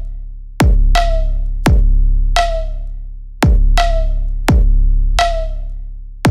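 Electronic background music with a heavy, regular drum-machine beat: deep bass kicks and sharp snare hits with synthesizer tones.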